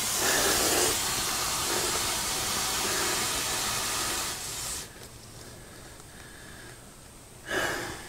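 Water rushing and hissing out through the well pressure tank's drain valve into a garden hose while the pump refills the system. It stops abruptly about five seconds in as the valve is shut, leaving a quieter low hum, with a brief louder sound near the end.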